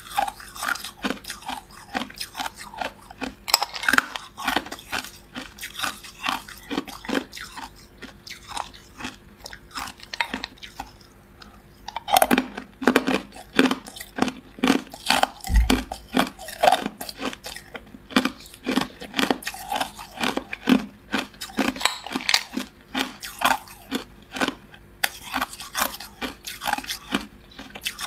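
Ice cubes dusted with matcha powder being bitten and chewed close to the microphone: a dense, irregular run of crisp cracks and crunches, busiest and loudest from about twelve seconds in. A brief low thud comes about fifteen seconds in.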